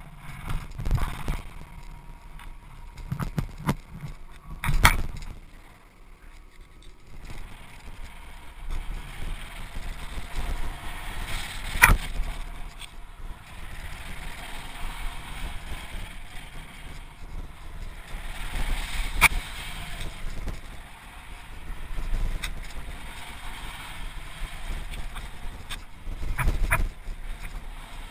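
Trek Remedy 8 full-suspension mountain bike rolling fast down a gravel trail: tyres rumbling over loose stones and wind buffeting the camera microphone. A few sharp knocks from the bike over bumps, about every seven seconds.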